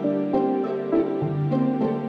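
Instrumental background music, a gentle tune with a new note about every third of a second.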